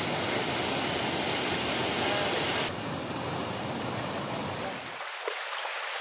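Rushing white water of a river in spate pouring over rocky rapids and low falls, a steady dense noise. About three seconds in the sound changes abruptly, and near the end the deep part of the rushing drops away, leaving a thinner hiss.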